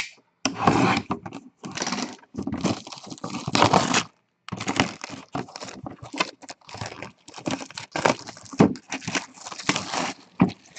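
Packaging being handled and torn open: irregular bursts of crinkling and tearing, with short pauses between them.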